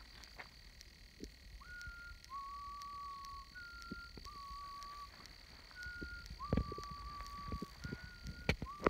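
A clear whistled two-note call, a short higher note followed by a longer lower note held level, repeated about four times at an even pace. A scatter of sharp clicks gets busier in the second half, with one loud click near the end.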